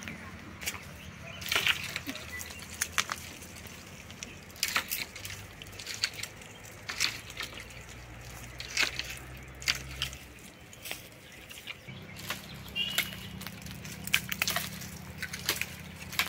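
Irregular sharp snaps and knocks with rustling from the branches and leaves of a tamarind tree as a man climbs and moves about in it, over a steady low hum.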